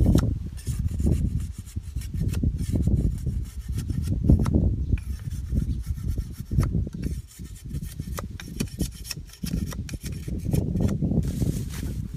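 A broad knife blade shaving and scraping a bamboo stick against a wooden log: repeated irregular rasping strokes with occasional sharp clicks.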